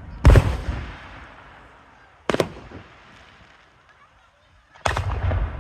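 Aerial firework shells bursting: three loud booms about two seconds apart, each echoing and dying away.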